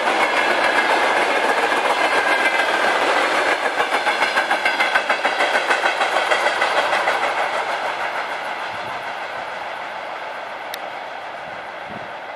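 Freight train's loaded container flat wagons rolling past, wheels clattering over the rail joints with a rapid even clickety-clack in the middle, then fading as the train moves away.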